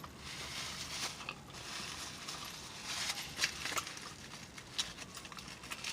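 Mouth sounds of someone chewing a stuffed crepe: wet smacking and soft squishing, with many short sharp clicks scattered throughout.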